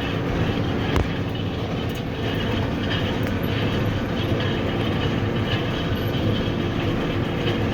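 Tractor running with a New Holland small square baler working behind it, a steady mechanical clatter with a single sharp knock about a second in.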